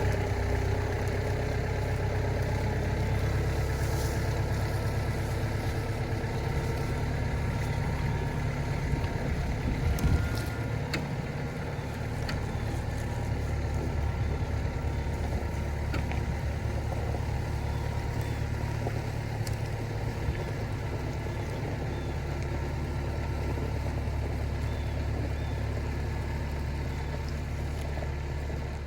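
Kubota tractor's diesel engine running steadily, with a single knock about ten seconds in.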